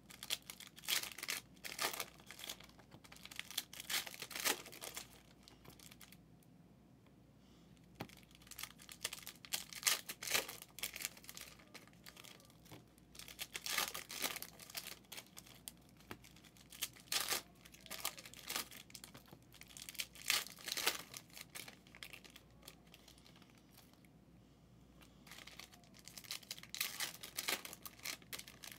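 Plastic wrapping on sealed football trading card boxes and packs being torn open and crinkled in repeated bursts, with two short lulls.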